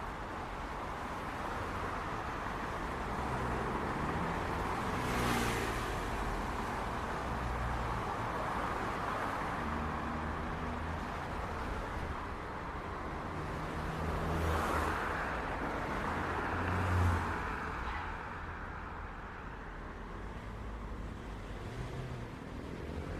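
City street traffic: a steady rumble of car engines and tyres, with vehicles passing close by, most clearly about 5 and 15 seconds in.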